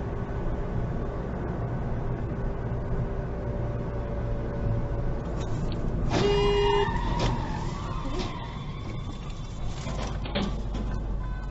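Steady road and engine noise heard from inside a moving car, with a short car horn blast about six seconds in.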